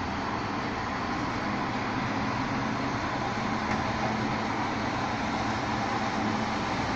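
Rear-loader garbage truck's diesel engine running steadily while it stands at a loading stop, a constant drone without distinct knocks.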